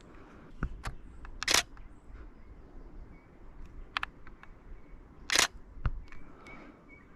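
Canon Rebel T7i DSLR shutter firing: several single clicks, with two louder short bursts of rapid frames about one and a half and five and a half seconds in.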